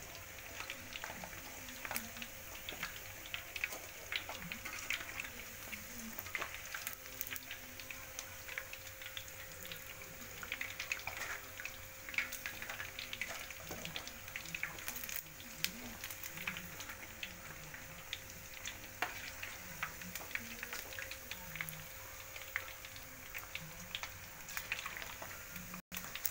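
Chicken pieces deep-frying in hot oil in a wok: a steady crackling sizzle with frequent sharp pops.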